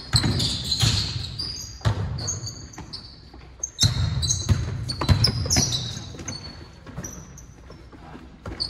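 A basketball bouncing on a hardwood gym floor, several sharp thuds a second or more apart, with sneakers squeaking on the floor as players cut and stop.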